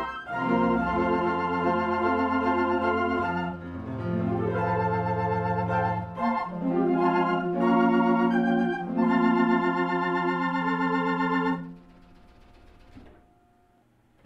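Organ music playing sustained chords that change every second or so, breaking off about twelve seconds in and fading to near silence.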